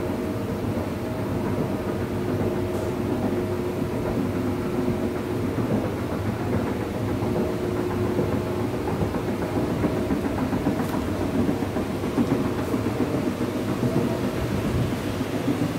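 Escalator running: a steady mechanical hum and rumble from its motor and moving steps.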